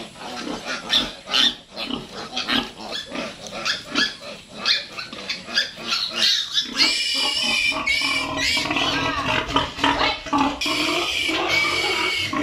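Piglet squealing while held by hand: short cries and grunts at first, then from about halfway through long, loud, high-pitched squeals, the distress call of a piglet being restrained and handled.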